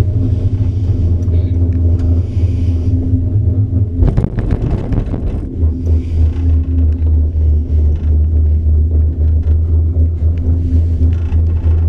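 Low, steady hum and rumble inside a Poma four-seat detachable gondola cabin running along its haul rope. About four seconds in, a short clattering rumble as the cabin's grip rolls over the sheaves of a line tower; after that the hum comes back, throbbing at an even rate.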